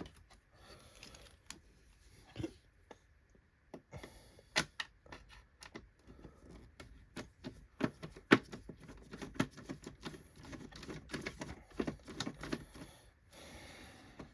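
Irregular clicks and taps of hands working on the plastic parts of a Hoover Windtunnel Supreme upright vacuum, with a couple of sharper knocks about four and eight seconds in.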